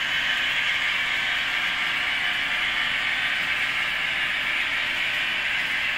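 Model freight train of grain hopper wagons rolling along the track: a steady, even rolling noise of small wheels on the rails.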